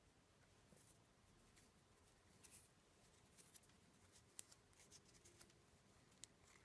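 Near silence, broken by a few faint, short clicks and light scrapes from handling small hot-glued parts.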